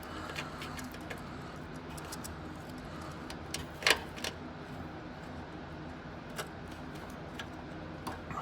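Light metallic clicks and clinks of wire terminals and bolts being handled, with one sharper click about four seconds in, over a steady low hum.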